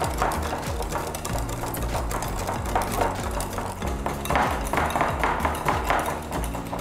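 Wire whisk beating a soft sugar, butter and yogurt batter by hand in a glass bowl, the wires clicking and scraping against the glass about three times a second. The mix is being beaten until the sugar dissolves.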